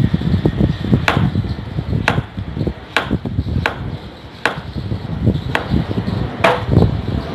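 A Chinese cleaver slicing a carrot into rounds on a cutting board. Each stroke ends in a sharp knock of the blade on the board, about seven of them at roughly one a second, over a low, uneven background rumble.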